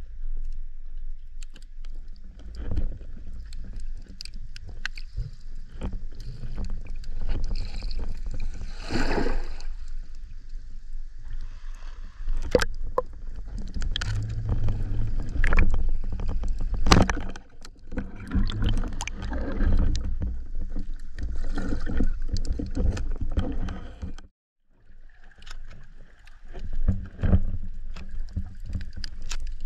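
Muffled water movement heard through an underwater camera housing on a speargun while the diver swims just below the surface: a steady low rumble and sloshing, with many scattered clicks and knocks.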